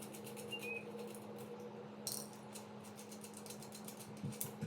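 Small metal antenna nuts on a crypto mining gateway being unscrewed with a tool: many quick, light metallic clicks and ticks, some in short clusters, over a steady low hum.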